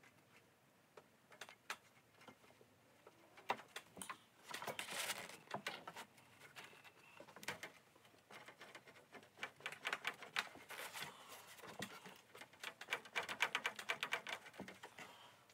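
Thin aluminium elevator skin of a Van's RV-7 crackling and clicking as it is pressed by hand over a wooden bending jig to bend the trailing edge. The clicks come in several quick bursts.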